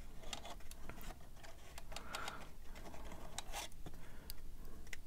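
Plastic parts of a Tamiya 1:6 Honda Africa Twin model kit clicking and tapping against each other, a string of light irregular clicks as they are handled and test-fitted together without glue.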